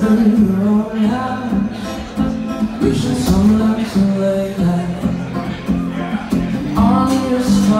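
A male voice singing a folk song, accompanied by his own acoustic guitar, performed live.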